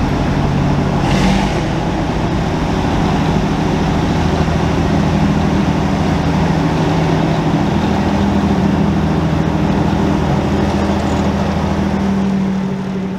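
Heritage diesel locomotive's engine running steadily, a low hum of several engine tones, with a short hiss about a second in.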